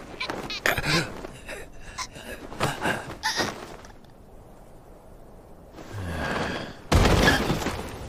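Anime fight sound effects: a run of sharp knocks and thuds, a quieter pause, then a short rushing swell leading into a sudden loud hit about seven seconds in.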